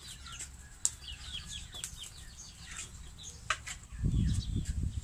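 Birds chirping over and over in short, high notes that slide downward, with a few sharp clicks; about four seconds in, a low rumble rises on the microphone.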